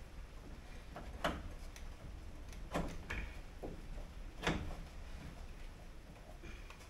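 Scattered metallic clicks and knocks, about five in all with the loudest about four and a half seconds in, as a hand tool works inside the steel door of a Toyota Corolla KE20, tightening the window regulator in place.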